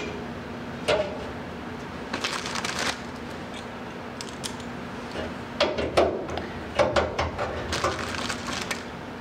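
Metal clicks and clatter of a thin aluminium bracket and Cleco temporary fasteners being handled and fitted. There is one click about a second in, a cluster around two to three seconds in, and a busier run from about five and a half seconds to near the end, over a steady low hum.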